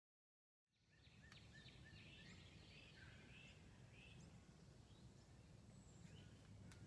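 Faint outdoor ambience: wild birds chirping in short repeated calls over a steady low rumble, coming in about a second in after silence.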